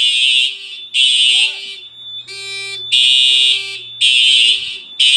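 Simplex TrueAlert fire alarm horns sounding loud, short blasts about once a second in an uneven rhythm, with a longer gap partway through. During that gap a different horn with a buzzier tone sounds once briefly. The uploader puts the erratic, out-of-sync patterns down to the 4100U CPU card staggering the many horn circuits.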